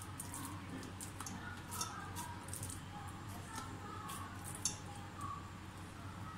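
Hands patting and pressing sticky chicken mince into a flat chapli kabab patty between the palms, an irregular run of soft, wet slaps.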